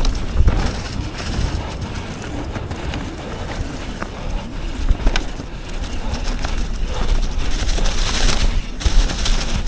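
Yeti SB 150 mountain bike riding along a dirt trail: steady rolling rumble of the tyres with scattered clicks and knocks from the bike over the ground, getting louder again near the end.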